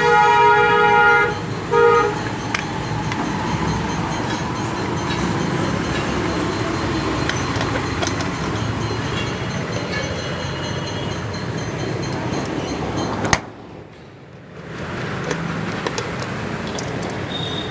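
A vehicle horn honks, one long toot and a short one about two seconds in, over steady street noise. The background drops off briefly near the end.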